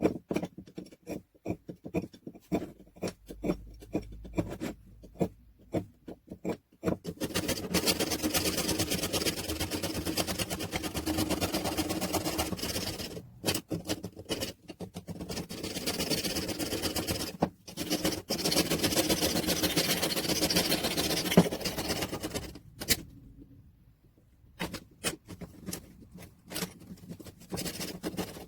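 Workshop work on metal parts of an old hand drill: light clicks and knocks as parts are handled, then three stretches of steady abrasive scraping or grinding lasting several seconds each, and a few more clicks near the end.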